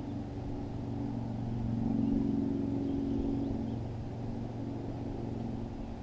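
A steady low motor hum that swells about two seconds in and then eases off.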